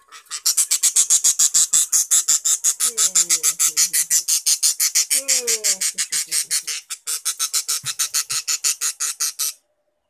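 Budgerigar chirping rapidly and steadily, about eight high chirps a second, stopping abruptly shortly before the end.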